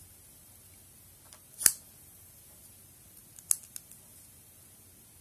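Sharp small metallic clicks from a Yale padlock being handled with a core shim: one clear click about one and a half seconds in, then two more close together about three and a half seconds in.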